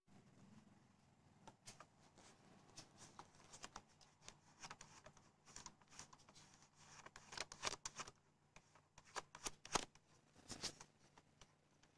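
Faint rustling and small clicks, getting busier in the second half, over a faint steady low hum.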